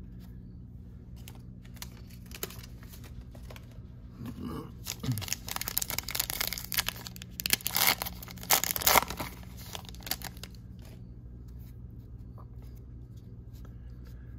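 Foil wrapper of a Topps Chrome trading-card pack being torn open and crinkled by hand. A few light crackles come first, then several seconds of loud tearing and crinkling that die away about ten seconds in.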